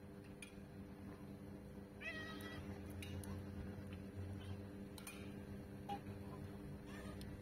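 A cat meows once, about two seconds in, over a steady low hum, with a few faint clicks scattered through.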